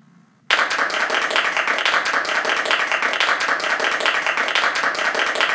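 Recorded applause from the Draw and Tell iPad app: many hands clapping, starting suddenly about half a second in and running evenly. It is the app's reward sound as a star is awarded.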